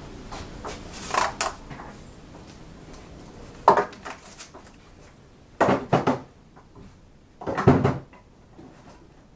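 Handling noise: four separate clusters of knocks and clatters from hard objects being moved and set down, the loudest near the end.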